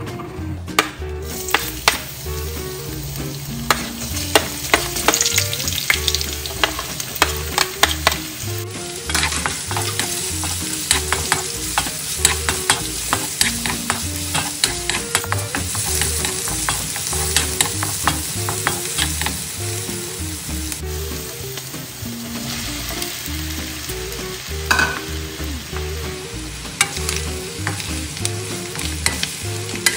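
Onion and ginger sizzling in hot annatto oil in a nonstick wok, with a wooden spoon stirring and clicking against the pan many times; later the pan holds boiled beef tripe, lung and heart being stirred and sizzling.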